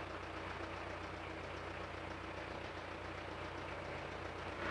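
Steady low background hum with no distinct sounds on top.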